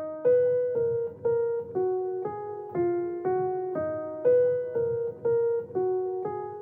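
Background music: a simple keyboard melody played one note at a time, about two notes a second, each note struck and fading.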